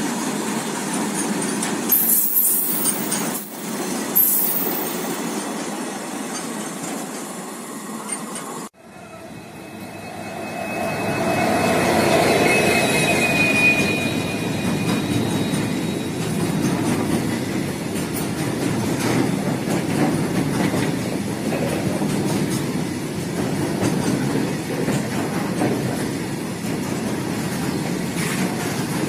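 Ro-Ro freight train of flat wagons carrying lorries rolling past, a continuous rumble of wheels on rail with a few high wheel squeals. The sound breaks off abruptly about nine seconds in, then the rumble builds back up with a thin squeal.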